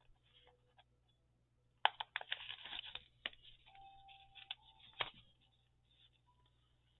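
Paper and thread handled during hand-stitching of a pamphlet-stitch signature: a burst of rustling and small clicks about two seconds in, a brief steady tone midway, and a sharp tap about five seconds in.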